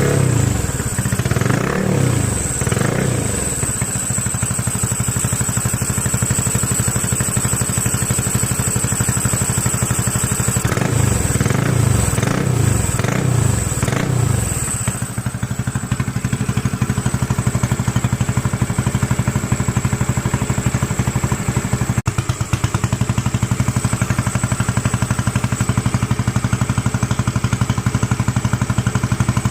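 Motorcycle engine blipped a few times at the start, blipped again for several seconds near the middle, then running at a steady idle.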